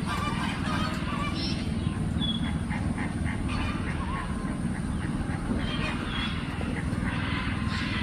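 Several birds calling at once: goose-like honks and quacks mixed with short chirps and whistles, over a steady low rumble.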